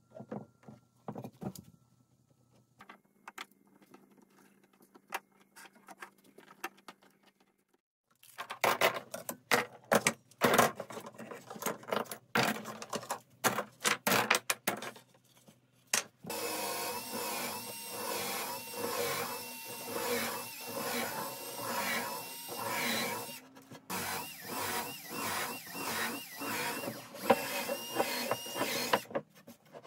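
Spring clamps and wooden strips handled with scattered clicks, then a dense stretch of clicks and knocks. After that a small electric tool motor, a cordless drill, runs for about thirteen seconds with a regular pulsing, pausing briefly once.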